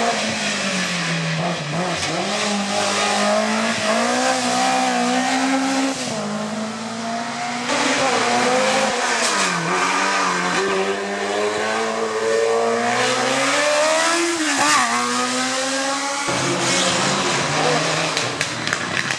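Race car engines revving hard up and down through the gears as cars accelerate and brake on a hillclimb course, the engine note rising and falling again and again. The sound changes abruptly a few times as one car gives way to the next.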